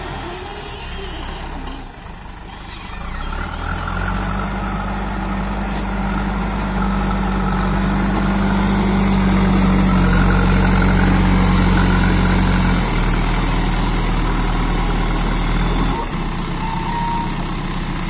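JCB 3DX backhoe loader's diesel engine running close by. It builds up a few seconds in, is loudest about halfway through, then drops back in two steps later on.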